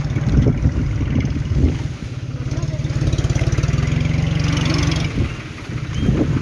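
Fiat 54C tractor's diesel engine running steadily under load, pulling a disc plough through dry field soil. Its level dips briefly about five seconds in.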